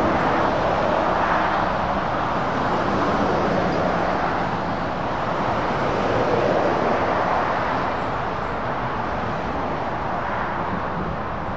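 Steady road traffic noise: cars, vans and lorries passing, tyre and engine sound blending into a continuous hiss that eases slightly toward the end.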